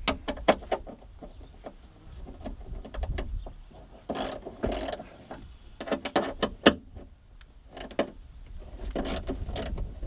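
Irregular metallic clicks and clinks of hand tools adjusting the bolts of the tailgate catch on a Fiat Panda 4x4, with a quick run of sharp clicks about six seconds in.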